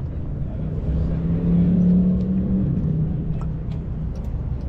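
A car engine running; its pitch and loudness climb to a peak about two seconds in, then drop back.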